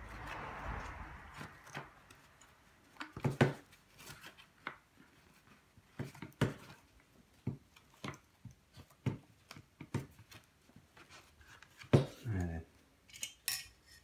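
Plastic floor-tool head of a Henry vacuum cleaner being handled and taken apart by hand: scattered sharp clicks and knocks of plastic parts, with a short rustling scrape at the start. Near the end come light, high clicks as the small metal springs inside are picked out.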